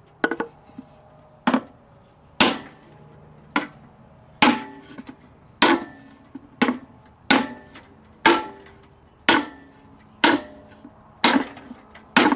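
Hammer blows on a wooden board laid over a new grease seal, driving the seal evenly into a semi-truck wheel hub's bore: a series of sharp knocks, roughly one to two a second and unevenly spaced, each with a short metallic ring.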